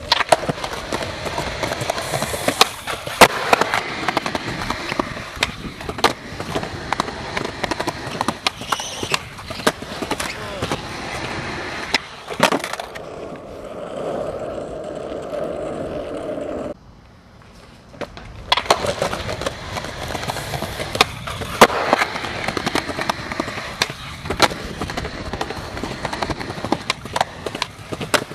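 Skateboard wheels rolling over concrete and asphalt, with frequent sharp clacks of the board from pops, landings and bumps in the pavement. The rolling noise breaks off suddenly a little past halfway for about two seconds, then picks up again.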